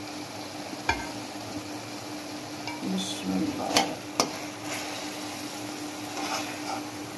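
Metal spoon stirring and scraping thick chicken karahi gravy in a metal karahi over a lit gas flame, clinking against the pan a few times, with a low sizzle underneath.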